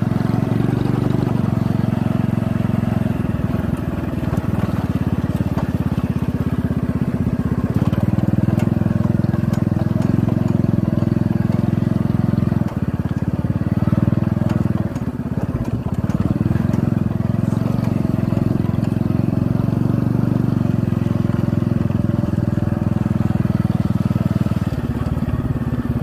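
Motorcycle engine running steadily while riding, with a fast even pulse to its note; it eases off briefly twice around the middle.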